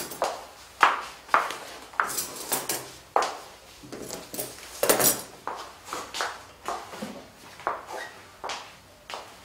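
Table being set: cutlery and a plate are put down on a table, giving an irregular run of light clinks and knocks.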